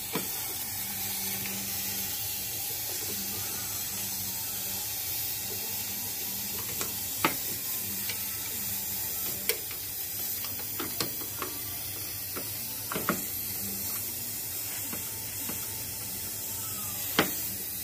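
Toyota Camry 2AZ 2.4-litre four-cylinder engine running steadily, with a few sharp, irregular clicks. The engine is described as noisy and knocking, having worn and burning oil.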